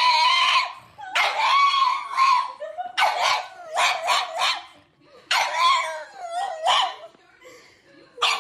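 A black pug howling in a run of high, wavering yowls, about five drawn-out calls with short breaks between them.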